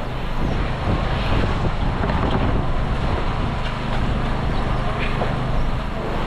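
Fishing boat engine running steadily, with water sloshing against the hull and wind on the microphone.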